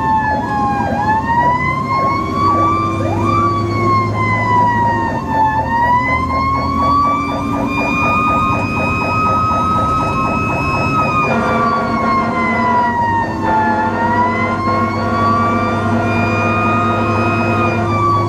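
Fire truck siren wailing, its pitch rising and falling in slow sweeps of several seconds. It is heard from inside the cab over the steady drone of the truck's engine.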